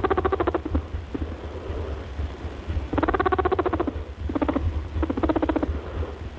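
Pet rabbit vocalizing in short, rapidly pulsed buzzing bursts: one in the first second, then three shorter ones a few seconds later, over a steady low hum.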